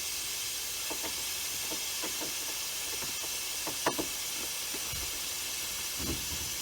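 Freon escaping under pressure from a fresh leak in a Carrier heat pump's refrigerant circuit: a steady hiss. A few faint ticks and one sharper tap about four seconds in.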